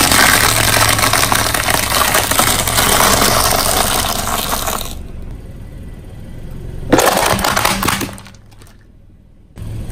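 A car tyre rolls over large brittle seeded crackers, making a dense, loud crackling crunch for about five seconds. After a quieter gap, a sharp crack about seven seconds in is the tyre crushing a red plastic object.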